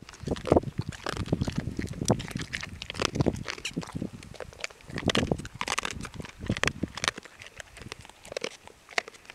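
Bull Arab hunting dog gnawing and licking close to the microphone: irregular wet mouth clicks and smacks, with louder rustles every second or so as it moves.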